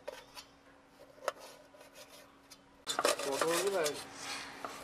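Kitchen knife cutting on a steel plate: a few sharp taps of the blade on the steel, then about three seconds in a busier stretch of scraping and chopping with a voice briefly speaking.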